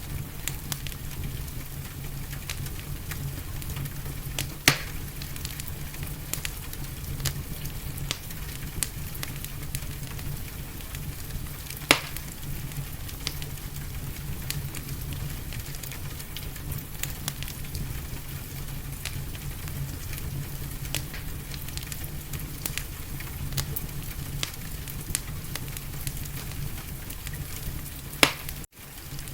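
Wood fire in a fireplace crackling steadily over a constant hiss, with many small crackles and three louder pops. The sound cuts out for an instant near the end.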